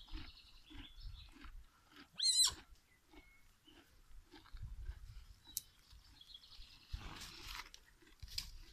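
A Garrano mare chewing close by, a steady rhythm of soft crunches about two to three a second. About two seconds in, a short, high, wavering call cuts across it, the loudest sound here, and a brief rustling burst comes near the seven-second mark.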